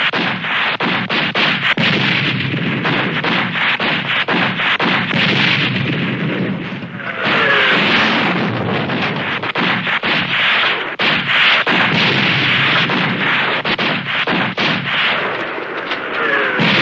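Battle sound effect: dense, continuous gunfire with many rapid shots over a steady rumble of artillery and explosions. A few short falling whistles, like incoming shells, sound near the middle and near the end.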